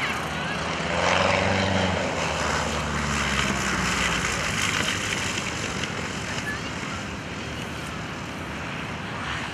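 Van's RV single-engine propeller plane passing low over the runway as it lands. The engine and propeller drone is loudest a second or two in and fades as the plane moves away.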